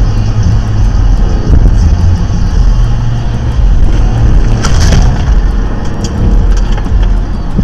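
Steady low road and engine rumble of a car driving at highway speed, heard from inside the car, with a brief harsh burst of noise about five seconds in.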